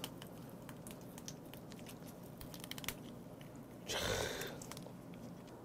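Swimming crab body being broken apart by hand: faint small cracks and crackles of the shell and cartilage splitting, with a louder rustle about four seconds in.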